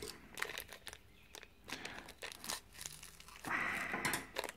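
Packaging crinkling and rustling as a new little-end needle roller bearing is unwrapped and handled, with small clicks throughout and a louder rustle about three and a half seconds in.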